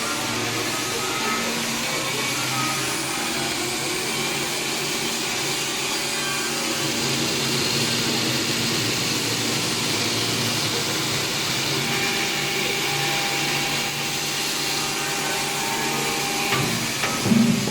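Log cross-cutting saw running: an electric motor drives the saw chain around a Komatsu harvester bar with a steady whine and rush of noise. A few sharp knocks come near the end, the loudest just before it ends.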